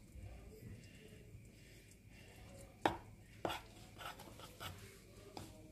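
A spoon stirring a dry flour and chili powder mix in a baking tray, tapping and scraping against the tray. There are two sharper clicks near the middle and lighter irregular taps after them.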